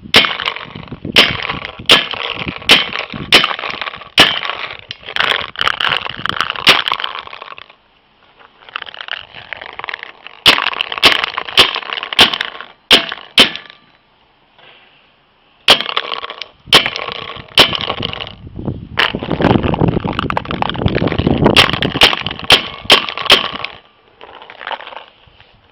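VL200 paintball gun firing repeatedly: sharp pops, one or two a second, in three strings with short pauses between them, over a rushing noise.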